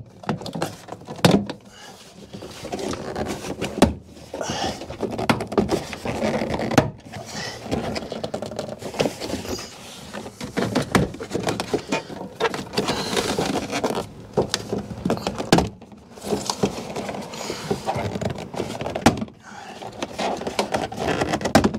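Plastic inner door trim panel of a Toyota Aygo being pulled off the door: several sharp clicks as its retaining clips pop free, among irregular rustling and scraping of plastic against the door.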